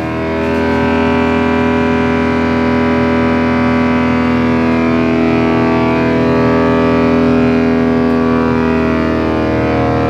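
Electric-motor-driven wood chipper running with nothing in the hopper: a loud, steady whine with several tones.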